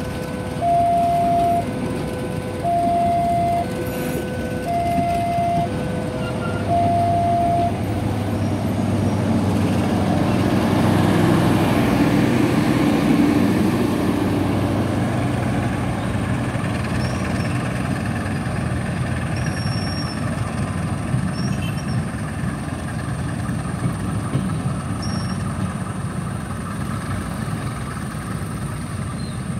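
Level-crossing warning alarm sounding in two alternating tones, about one second each, which stops about eight seconds in. Under it, the Tanjung Balai Express passenger coaches rumble and clatter past on the rails; the rumble swells, then slowly fades as the train pulls away.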